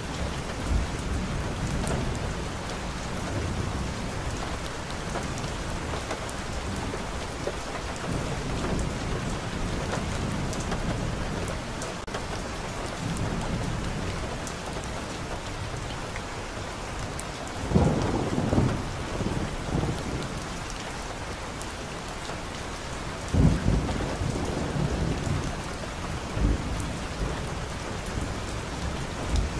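Steady rain with thunder rumbling in the background, the loudest rolls of thunder a little past halfway and again about three-quarters through.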